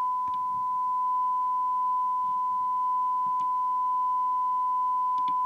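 Steady 1 kHz test tone from the Audioline PT340 CB radio's speaker: the demodulated tone of an S9 signal from the signal generator, heard while the detector coil L19 is tuned for maximum audio. A few faint ticks from the trimming tool sit under the tone.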